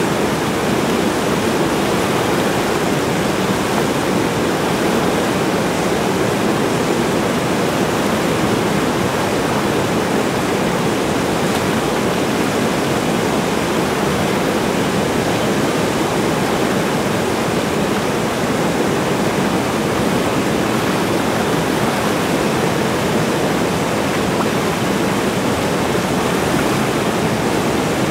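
Whitewater rapids rushing steadily over and around boulders, a loud, unbroken wash of river noise.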